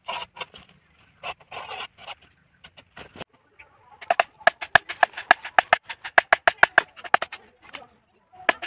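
A few rasping scrapes and clicks of a hand saw on green bamboo. Then, from about four seconds in, a fast run of hollow, ringing knocks, about five a second: a bamboo mallet hammering a blade down into an upright bamboo pole to split it.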